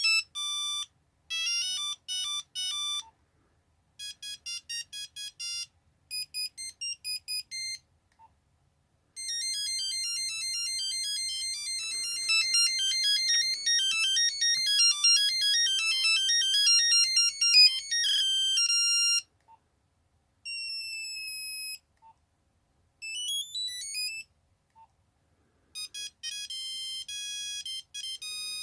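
Nokia 3210 monophonic ringtones played one after another: a series of short beeping melodies separated by brief pauses. The longest tune runs from about nine to eighteen seconds in, and a few short gliding tone patterns come after it.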